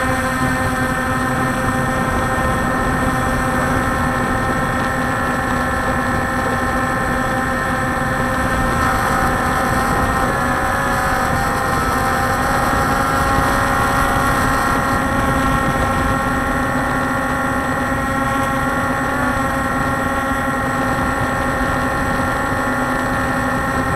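Walkera Scout X4 quadcopter's electric motors and propellers whining steadily in flight, heard from the onboard camera, with slight wavers in pitch.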